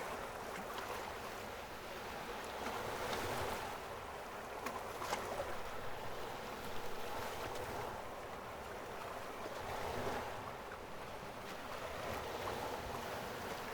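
Ocean waves and running water: a steady rushing wash that swells twice and eases, with a few brief splashes near the middle.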